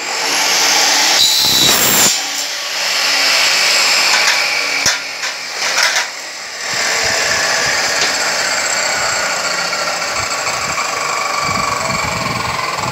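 Electric chop saw running and cutting a gold-coloured aluminium window profile, a loud, steady high-pitched whine and screech of the blade in the metal. A few sharp knocks come around the middle, and then the cutting noise holds steady to the end.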